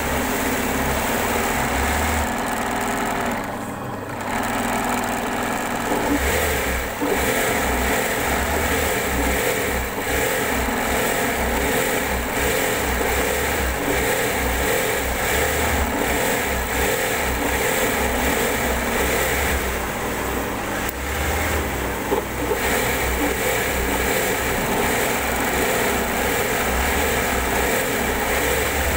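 Sewing machine running steadily, its needle stitching a free-motion embroidery outline through hooped fabric. The machine eases off briefly about four seconds in.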